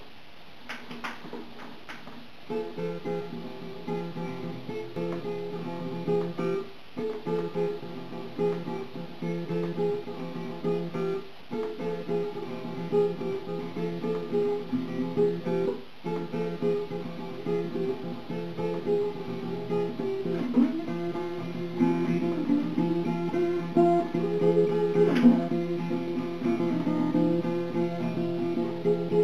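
Acoustic guitar playing an instrumental tune. It opens with a few soft plucked notes, and the steady picking comes in about two seconds in. There are brief breaks in the first half, and a few sliding notes later on.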